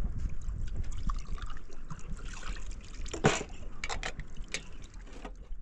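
Water trickling, with scattered small clicks and one sharper noise a little past three seconds in, over a steady low rumble.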